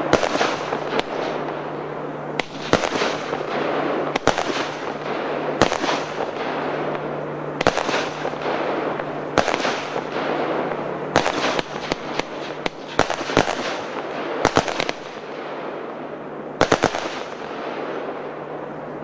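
Royal Fireworks 'Paradise of Colors' (RFC 1481) multi-shot firework going off. There is a sharp report every second or two, some coming in quick pairs, over a continuous hiss of burning and falling stars.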